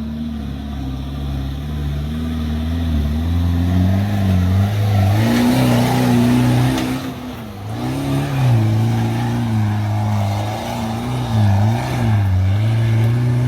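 Toyota Hilux engine working under load, its pitch climbing over the first few seconds, dipping briefly past the middle, then rising and falling several times as the throttle is worked.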